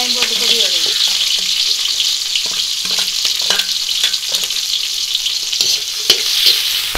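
Sliced shallots and green chillies sizzling in hot oil in a large metal wok, a steady hiss, with short scrapes and taps of a metal spoon against the pan as they are stirred.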